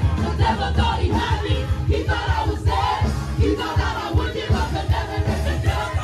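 Live gospel praise music: a church band playing with a steady beat while the congregation sings and shouts along.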